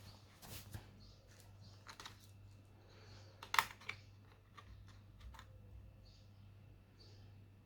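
Scattered light clicks and taps from hands working on a laptop's plastic case and parts, the loudest a sharp click about three and a half seconds in, over a faint steady low hum.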